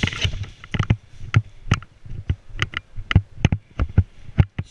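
Quick footsteps on a concrete floor, about two to three a second, with a burst of rustling right at the start.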